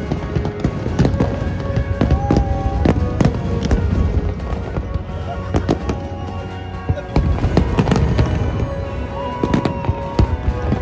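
Aerial fireworks bursting over the harbour: an irregular, rapid string of sharp bangs and crackles over a low rumble, with music playing alongside.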